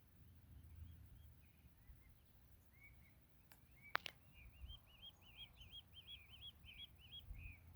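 Desert birds chirping faintly, with a quick run of repeated rising-and-falling chirps in the second half and one sharp click about four seconds in.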